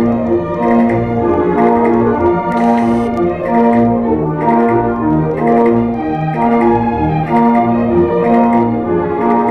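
Orchestral ballet music: sustained chords over a steady, repeating bass beat.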